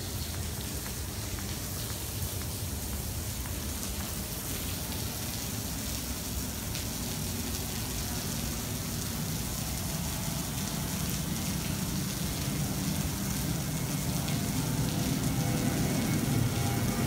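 Steady heavy rain falling on the wet apron and terminal, with the distant rumble of a Thai Smile Airbus A320's jet engines building over the last few seconds as the airliner spools up to take off.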